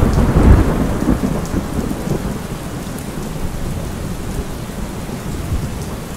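Thunderstorm: a low rumble of thunder in the first second, dying away into steady heavy rain.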